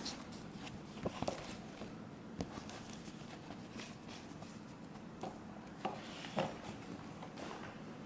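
Trading cards and their packaging being handled: scattered light taps, clicks and soft rustles, a few seconds apart.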